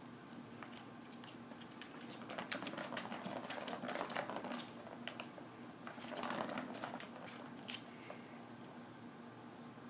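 Plastic ball rattling and clicking around the plastic channel of a Bergan Turbo Track cat toy as a kitten bats at it: two spells of rapid clicking, the first from about two seconds in to about five, the second shorter, near the middle of the second half.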